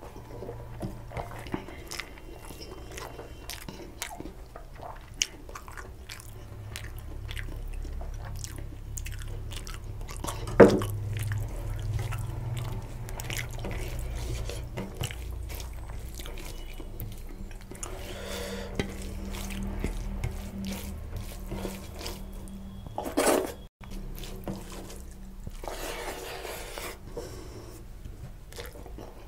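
Chewing and wet mouth smacks of a person eating rice and mutton curry by hand, with squishy sounds of fingers mixing rice and gravy on a steel plate. One sharper knock stands out about ten seconds in.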